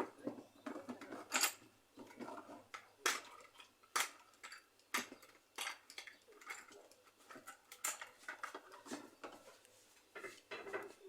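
Small metal hand tools clinking and tapping irregularly against a workbench and circuit board, a dozen or so sharp clicks with short rattles between.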